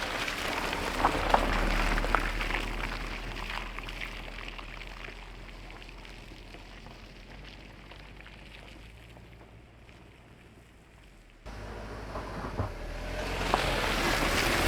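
Car tyres running through wet mud and water, a crackling splashing noise that slowly fades, with a faint engine hum underneath; an abrupt change about eleven seconds in brings the engine hum back louder.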